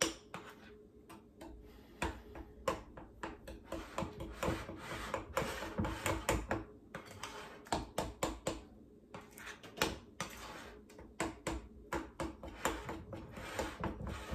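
A utensil clinking and scraping against a glass mixing bowl as thick cake batter is stirred, in quick irregular strokes that come thicker toward the end.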